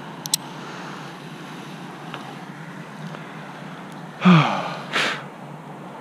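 A sharp metallic click, then about four seconds in a man's loud grunting exhale that falls in pitch, followed by a second, breathier exhale.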